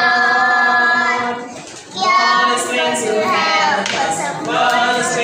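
A group of young children singing together into a microphone, a sung phrase of held notes with a brief pause about two seconds in before the singing resumes.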